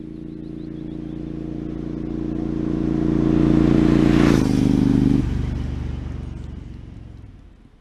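Triumph Speedmaster motorcycle's parallel-twin engine on Longshot aftermarket pipes, riding past at a steady throttle. It grows louder as it approaches, its note drops in pitch as it passes about four seconds in, and it fades away near the end.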